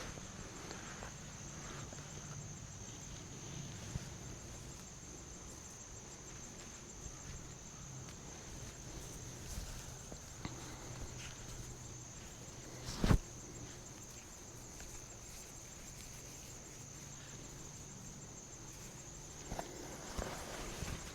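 Steady high insect chorus, with faint rustling. A single sharp knock comes about thirteen seconds in, and a few smaller knocks and rustles near the end.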